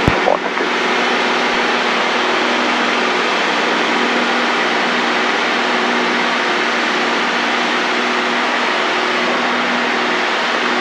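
Steady engine and propeller drone heard inside the cabin of a light piston training aircraft in level flight: a loud, even rush of noise with a few steady low tones in it. A short click right at the start.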